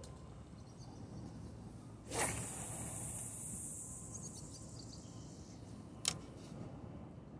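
Fishing line hissing off a spinning reel as a metal lure is cast, starting suddenly about two seconds in and fading away over a couple of seconds. A single sharp click follows about six seconds in.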